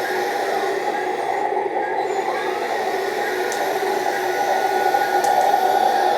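All-metal RC excavator's motors running with a steady mechanical whine, its pitch shifting slightly as it moves.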